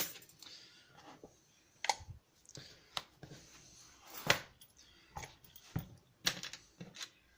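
Irregular sharp clicks and taps of small metal lock-picking tools being handled and set down, some seven knocks a second or so apart, the loudest about four seconds in.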